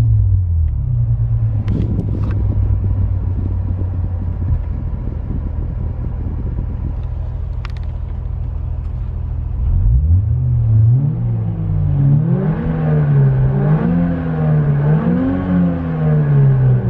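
Renault Clio GT-Line 1.2 TCe engine sound with the R-Sound Effect app's synthesized engine note playing through the car's speakers: a steady low idle with a few sharp clicks, then from about ten seconds in it revs up and down in several rising and falling waves.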